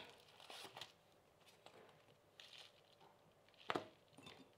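Faint rustling and light tapping of paper stickers and a paper mailing envelope being handled on a desk, with one sharper tap about three and a half seconds in.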